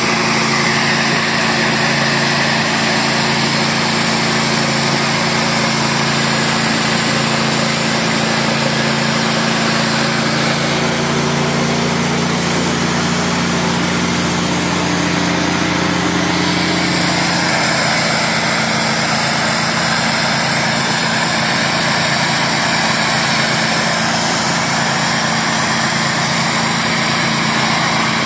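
Hot-water high-pressure washer of a boat decontamination unit running steadily, its engine note under the hiss of the spray as the wand blasts the hull and trailer to kill zebra mussels. The engine note shifts briefly about midway.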